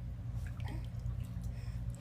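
Faint drips and small splashes of bathwater, a few scattered ticks over a steady low hum.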